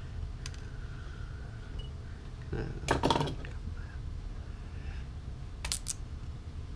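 Handwork on a fishing rod's metal guide with a razor blade: small sharp metallic clicks and clinks, loudest in a quick cluster about three seconds in and again as a pair near the end, over a steady low hum.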